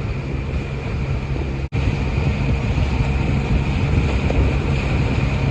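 A boat's engine running steadily under way, a constant low hum, with wind buffeting the microphone and water rushing past the hull. The sound cuts out completely for an instant about two seconds in.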